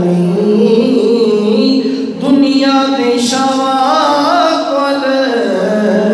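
A man singing a Punjabi naat, holding long, wavering, ornamented notes with a brief break for breath about two seconds in.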